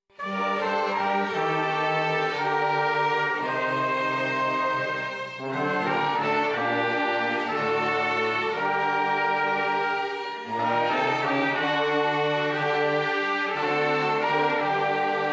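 Church orchestra playing a slow hymn, held chords in long phrases. It comes in abruptly at the start, with short breaths between phrases about five and ten seconds in.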